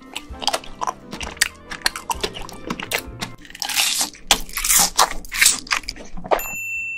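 Close-miked mukbang eating sounds: a fast run of crunchy bites and chewing over background music. Near the end a steady high chime tone takes over.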